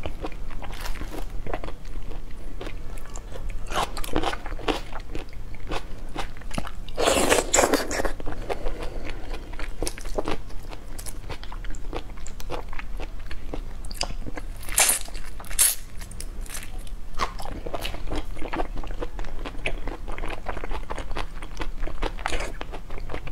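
Close-miked crackling and crunching of large raw shrimp shells being peeled and pulled apart by hand, mixed with chewing. The clicks come irregularly, with a longer, louder crunching burst about seven seconds in.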